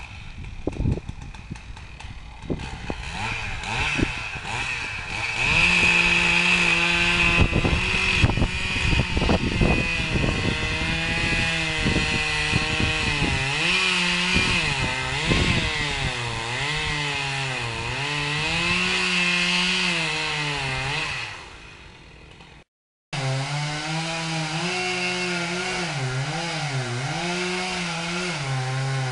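Chainsaw cutting into the trunk of a large dead poplar, its engine pitch dipping and rising over and over as the chain bites and frees under load. A few irregular knocks come first, and the saw comes in loud about five seconds in, with a brief dropout near the end.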